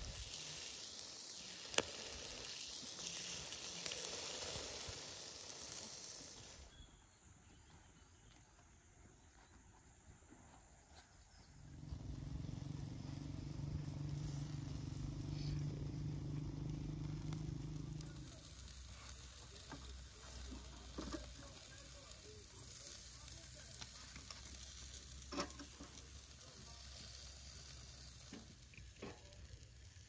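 Food sizzling over a charcoal grill for the first several seconds, then quieter. A low steady hum runs for several seconds in the middle, and a few light taps and clicks come near the end.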